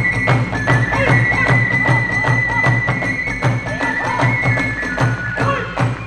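Kagura ensemble music: a high bamboo flute line holding long notes, stepping slightly in pitch, over a quick, even beat of taiko drums and clashing hand cymbals.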